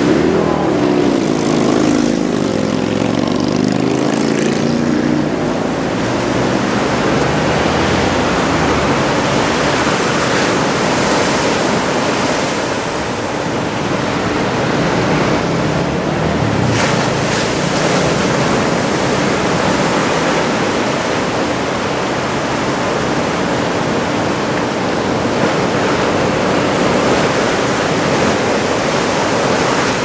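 Big typhoon-swell surf breaking, a loud steady wash of noise, with road traffic passing close by in the first few seconds.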